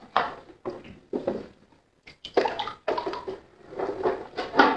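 Plastic toy trucks pushed through shallow water in a ceramic sink basin: water sloshing and plastic scraping against the basin in short, uneven bursts.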